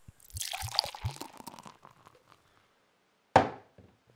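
Beer being poured into a glass, with a few low glugs and a foamy fizz for about a second and a half, then a single sharp knock as the glass is set down on the table.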